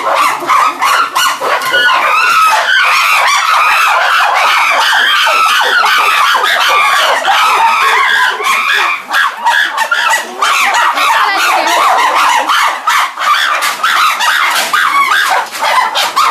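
A group of chimpanzees calling all at once in a loud, unbroken chorus of overlapping short, high cries. These are their characteristic cries of joy and excitement on going out to their enclosure.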